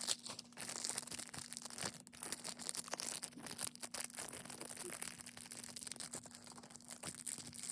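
Toy blind-bag wrappers crinkling and tearing as they are handled and opened by hand, a continuous run of close crackling and rustling.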